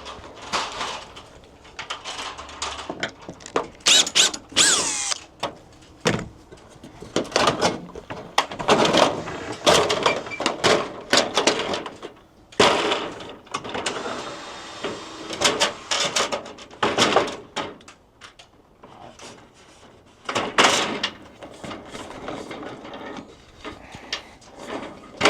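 Irregular metal knocking, clattering and scraping from a metal rain gutter being worked loose and taken down off a building's fascia, with a brief squeal of metal about four seconds in.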